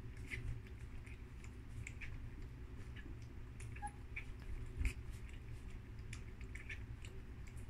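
German Shepherd puppies lapping goat milk from a tray: irregular small wet clicks and smacks, several a second, with a single heavier thump about five seconds in.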